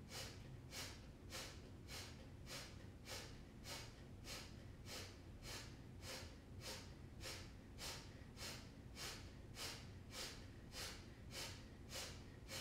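A woman doing breath of fire: short, sharp exhales forced out through the nose by pumping the belly, each followed by a silent passive inhale. The huffs come in a steady rhythm, a little under two a second.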